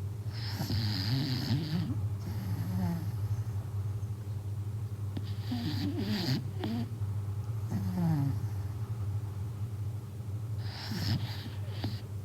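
A corgi snoring loudly in its sleep, like a grown man: long, rasping snore breaths about every five seconds, with smaller wavering snorts between them.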